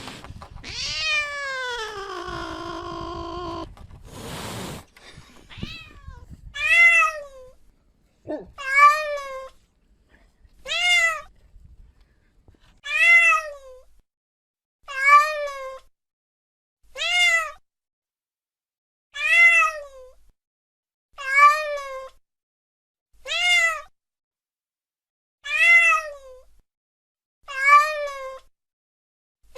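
Domestic cat meowing: one long meow that falls in pitch, then a short meow that rises and falls, repeated evenly about every two seconds, a dozen times.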